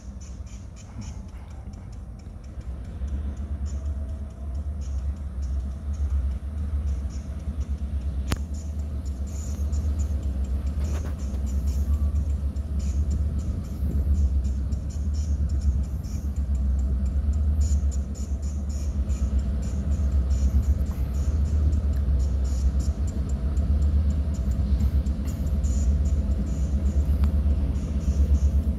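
Diesel freight locomotives running with a low, steady rumble as they pull the train closer, growing louder from about three seconds in.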